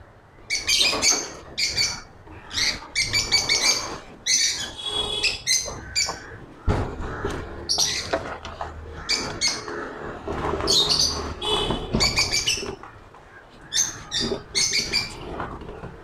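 Cockatiels calling over and over in short, harsh chirps and screeches, with a couple of knocks as a wooden nest box is fitted against the wire mesh of their cage.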